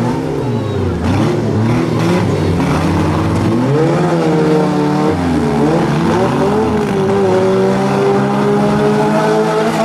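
Four-cylinder demolition derby cars' engines revving hard together, their pitch repeatedly rising and falling as the cars push against each other.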